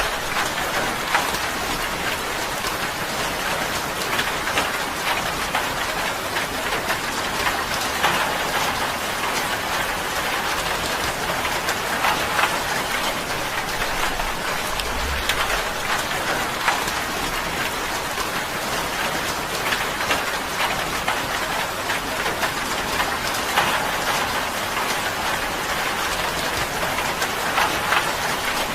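Steady rain falling on tin: a dense, even patter with many sharp individual drop hits.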